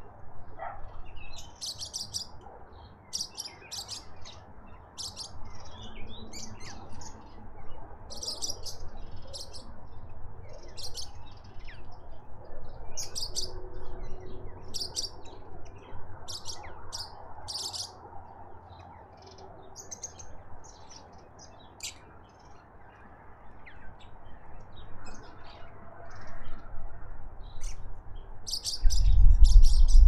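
Small wild birds chirping, many short, high-pitched calls coming one after another, with a quieter stretch in the middle. Near the end a loud low rumble sets in.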